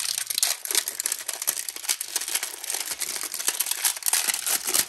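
Clear plastic packaging crinkling and rustling as it is pulled off a new chainsaw cylinder, a steady crackle made of many quick ticks.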